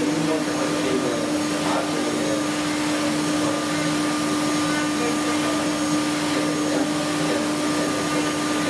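DMG Mori CNC milling machine running, its spindle driving a small end mill against a wooden workpiece: a steady whir with a constant pitched hum.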